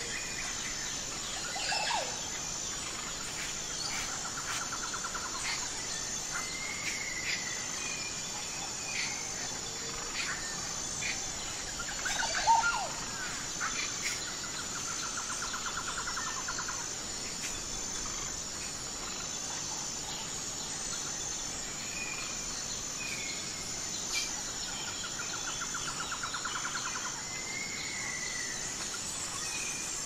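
Outdoor soundscape of a steady, high-pitched insect chorus with scattered bird calls over it: short whistled notes and a rapid trill repeated three times. The loudest call comes about twelve seconds in.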